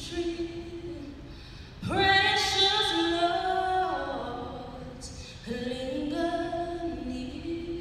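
A woman singing a slow melody unaccompanied into a microphone, in long held notes; a new phrase begins about two seconds in and another a little past halfway.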